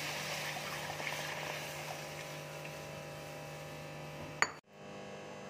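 Milk poured into a hot kadai, hissing and sizzling on contact; the sizzle fades over the first couple of seconds to a faint steady fizz as the milk settles in the pan. A single sharp click about four seconds in.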